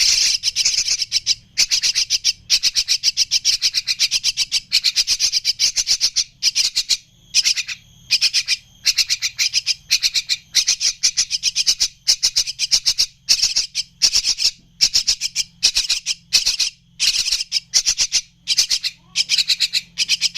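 Javan myna chicks calling: rapid, harsh chattering calls repeated in bouts of about a second with brief pauses between them.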